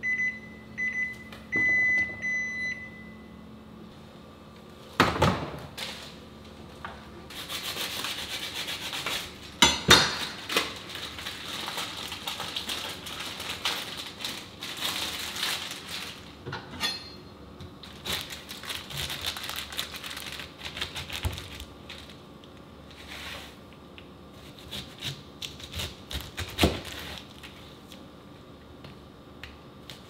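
A Mitsubishi refrigerator's door-open alarm beeps several times in the first three seconds, a warning that the door has been left open too long. Then come food-preparation sounds: plastic wrap rustling, a few sharp knocks on a plastic cutting board, and a knife cutting through a peeled pineapple.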